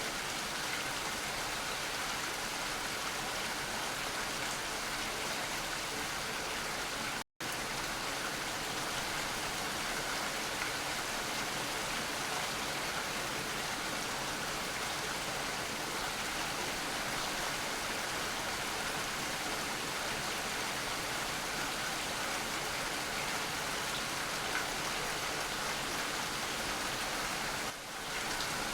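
Steady rain falling, an even hiss with no letup. It cuts out completely for a split second about seven seconds in, then carries on as before.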